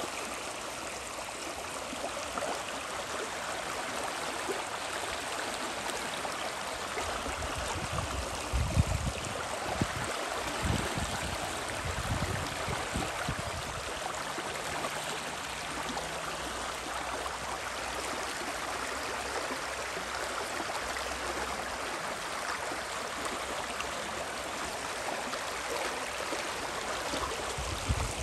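Rushing water of the Spree river, a steady even rush, with a few low rumbles about a third of the way in.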